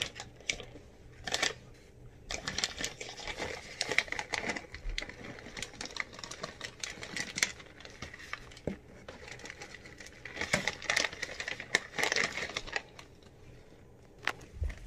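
Chocolate chips dropping into crisp waffle cones in many quick, light clicks and rattles, with the crinkle of the chip bags being handled.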